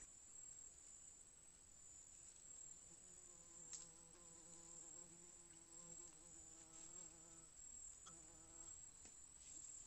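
Faint buzzing of a flying insect: a steady, slightly wavering hum that comes in about three seconds in, breaks off briefly and stops near the end. A couple of faint ticks are also heard.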